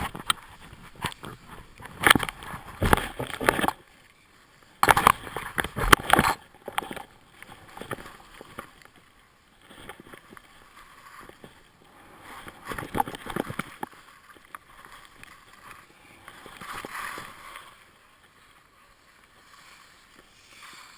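Edges sliding and scraping over packed snow during a run down a ski slope, with wind rushing over the action-camera microphone. Loud surges of rough noise in the first six seconds, then quieter, patchier sliding as the riders slow down.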